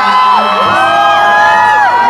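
Concert crowd screaming and cheering: many high voices shriek long overlapping whoops, each sliding up at its start and dropping away at its end.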